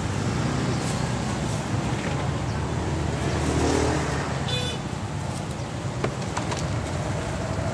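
Street traffic ambience: a steady low rumble of passing motor vehicles, with a short high-pitched tone about four and a half seconds in.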